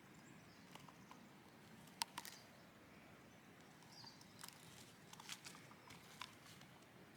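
Near silence: faint outdoor ambience with a few scattered soft clicks and ticks, the sharpest about two seconds in.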